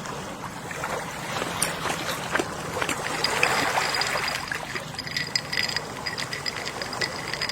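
Gentle sea waves washing in, a soft continuous wash that swells in the middle and eases off again.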